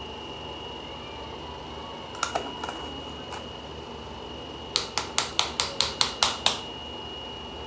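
Hands clapping together: a couple of light claps a couple of seconds in, then a quick run of about eight sharp claps near the end, about five a second, dusting loose setting powder off the hands.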